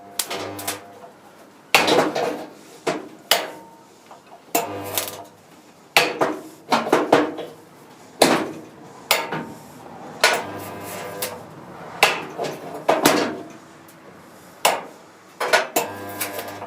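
Resistance spot welder joining the steel rear valance panels of a Triumph TR4, making four welds along the seam: each weld is a short low electrical hum, and between them the welder's arms clank and ring against the sheet metal as they are moved and clamped.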